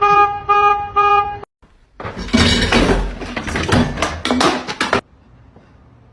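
A horn-like honking tone sounding in about four quick blasts, followed about half a second later by three seconds of loud rushing, clattering noise that cuts off suddenly.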